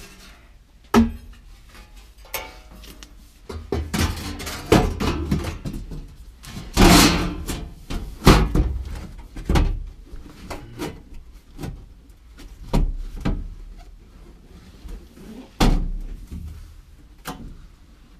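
Steel floor repair panel being fitted into a car's floor pan: irregular knocks, thuds and clanks of sheet metal against the body, with a longer scraping rattle about seven seconds in.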